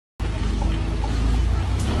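Dump truck's diesel engine running with a low, steady rumble as the truck creeps forward.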